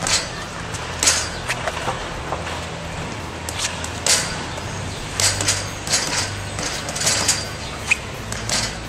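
A boxer in gloves shadowboxing on concrete: a run of short, sharp sounds at uneven intervals from his punches and footwork, busier in the second half, over a steady low hum.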